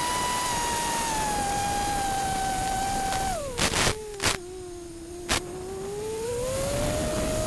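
Brushless motors of a 5-inch 6S FPV quadcopter (T-motor Blackbird V2 2800kv) whining steadily, then dropping sharply in pitch about three seconds in as the throttle is cut for a dive, staying low and quieter, and rising again near the end as throttle comes back. A few sharp cracks sound just as the pitch drops, and one more about a second and a half later.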